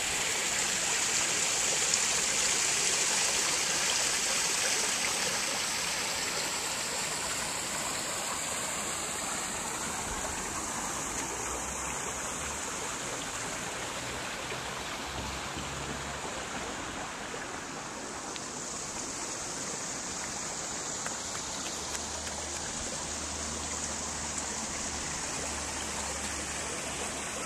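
Steady rushing, hissing noise like running water, a little louder in the first few seconds.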